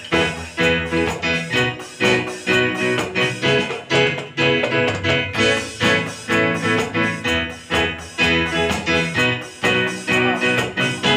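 A guitar-led backing song playing, with drums played along on a NUX electronic drum kit in a steady beat of sharp hits a few times a second.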